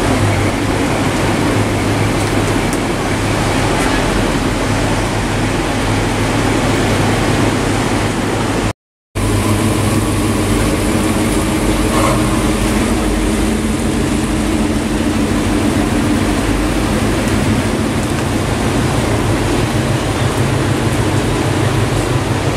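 Classic cars cruising slowly past one after another, their engines running low and steady over an even background hiss. The sound cuts out for a moment about nine seconds in.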